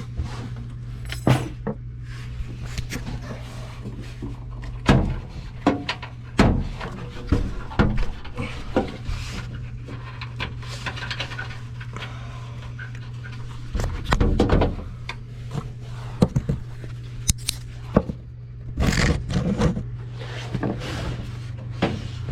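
Irregular metallic clicks, clinks and knocks of tools and parts being handled at an old gas furnace while its capacitor is checked, with a few louder clusters of clatter, over a steady low hum.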